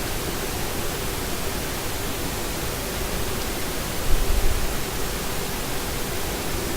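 Steady hiss with a faint, steady hum underneath, and a brief low bump about four seconds in.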